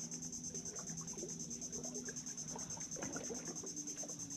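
Insects chirping in a fast, steady, high-pitched pulse, with a few faint knocks about three seconds in.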